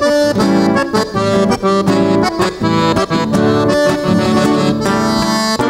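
Accordion playing an instrumental interlude, a quick run of notes between the sung verses of a gaúcho trova.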